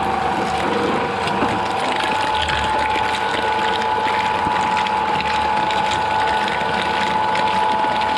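Shredder machine running steadily with a constant whine, crunching and crackling as material goes through its cutters.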